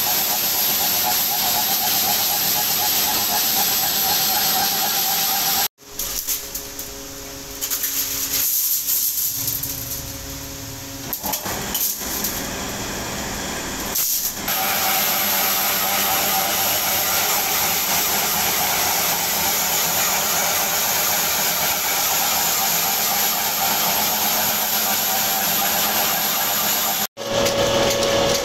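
Belt-driven, electric-motor workshop machinery working steel rod stock runs steadily, giving a continuous whirring hiss over a steady hum. About six seconds in, the sound cuts abruptly to a quieter, lower drone with a few steady tones. Near the middle, the hissing run returns.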